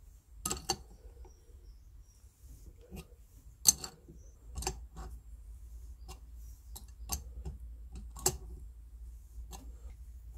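Irregular sharp metallic clicks and knocks from a left-hand screw extractor and its wrench turning a stripped, Loctited brake disc screw out of a motorcycle wheel hub. The loudest click comes about three and a half seconds in.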